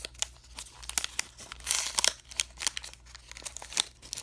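Foil wrapper of a baseball card pack crinkling and tearing as it is opened by hand: a run of sharp crackles, loudest about two seconds in.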